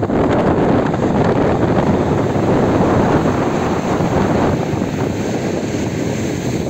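Large storm waves breaking on the shore in a loud, continuous rush, mixed with wind buffeting the microphone.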